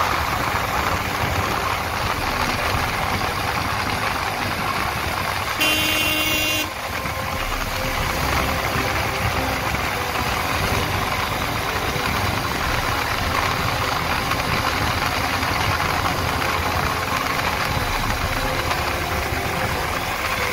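Motorcycle riding at road speed, its engine running under a steady rush of wind noise. About six seconds in, a vehicle horn sounds for about a second.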